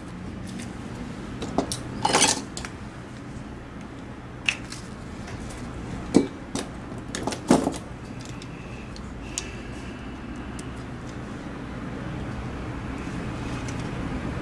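Sharp clicks and knocks of small plastic mouse parts and tools being picked up and set down on a rubber work mat, several in a row with the loudest cluster about two seconds in, over a steady low hum.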